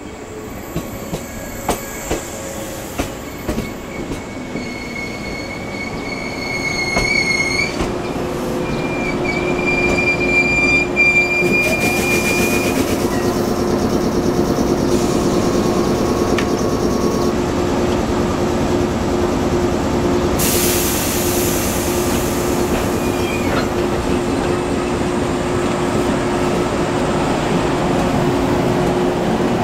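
Blue JR Nanao Line local electric train pulling into the station: its wheels click over rail joints, then the brakes squeal on a high tone as it slows to a stop about 12 seconds in. After that the standing train gives a steady hum, with a short burst of air hiss about 20 seconds in.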